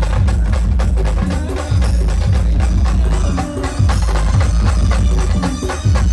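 Loud band music with fast, dense percussion over heavy bass.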